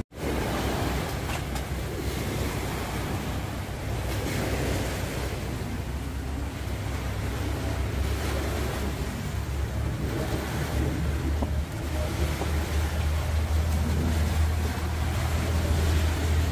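Steady wind rumbling on the microphone over the wash of waves, with no clear single events.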